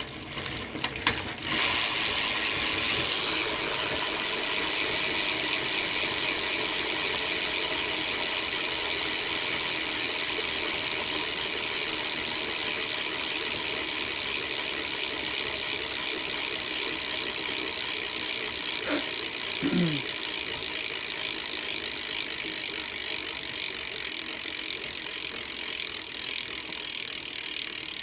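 A BMX rear-wheel freewheel ratcheting as the wheel coasts, a fast, even buzz of pawl clicks that begins about a second and a half in and slowly fades. It is the hub from a stock Kink Curb, which the owner calls pretty shot.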